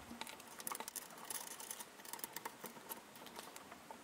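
Faint, scattered clicks and light taps of small metal parts and hand tools being handled while a bracket is fitted to the aluminium gantry plate.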